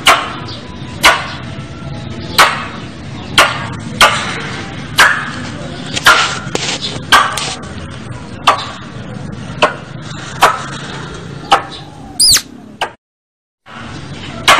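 Squirrel calling: sharp, clipped chip notes repeated about once a second over steady background noise. The recording cuts to silence for under a second near the end, then the calls resume.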